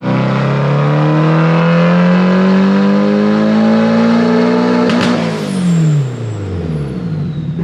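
Turbocharged SR20DET four-cylinder engine in a wide-open-throttle dyno pull, revs climbing steadily for about five seconds. A sharp burst follows as the throttle closes, then the revs wind back down.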